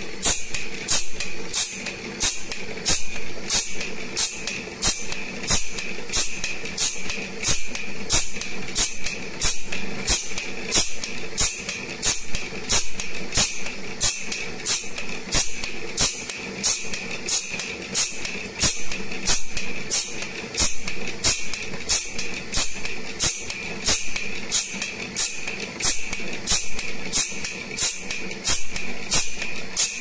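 Automatic band saw blade sharpening machine running: its grinding wheel grinds the steel teeth with a short hiss about twice a second as the blade is stepped on tooth by tooth, over a steady whine and motor hum.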